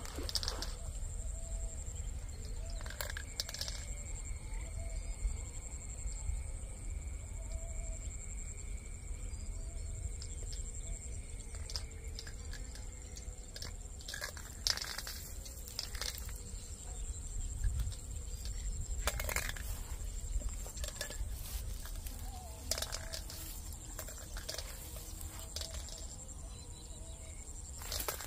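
Outdoor ambience: a low wind rumble on the microphone and a steady high-pitched drone, with a handful of scattered short clicks and knocks.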